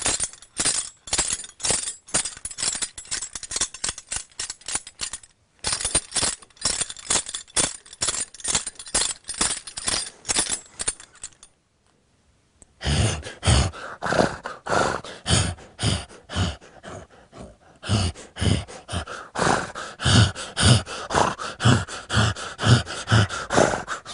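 Foley horse bridle (metal fittings and buckles) shaken in a quick, even rhythm to match a horse's gait, a fast run of jingling clinks. It stops briefly about halfway through, then resumes with deep, heavy thuds like hoofbeats under the jingle.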